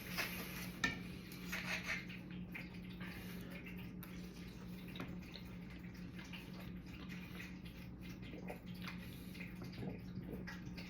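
Cutlery clinking and scraping on a plate in soft, scattered strokes while eating, over a steady low hum.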